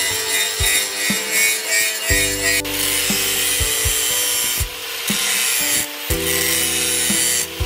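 Angle grinder with an abrasive disc grinding the edge of a steel knife blade, a steady harsh grinding hiss whose tone shifts a few seconds in.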